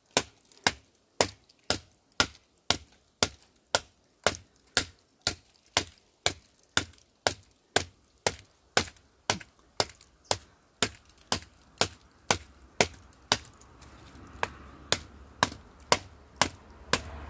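SOG Tech Bowie knife chopping into a piece of seasoned oak: a steady run of sharp blade strikes into the wood, about two a second.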